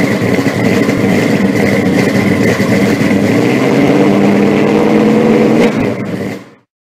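A car engine running loudly, with a steady high whine over it. It drops away quickly about six and a half seconds in.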